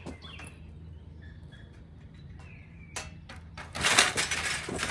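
Short bird chirps now and then. Near the end comes about a second of loud, rough scraping and rattling as a metal rod is worked down inside a wire cage trap holding a live raccoon.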